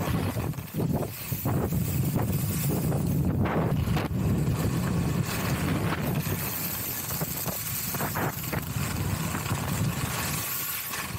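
Skis hissing and scraping over snow through a series of turns, with heavy wind rumble on the microphone from the speed.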